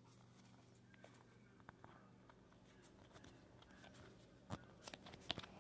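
Near silence: faint room hum with soft scattered clicks and rustles of trading cards being handled, and a few sharper clicks near the end.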